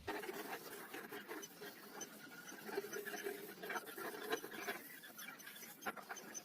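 Faint scratching and scraping with light, irregular tapping and clicks.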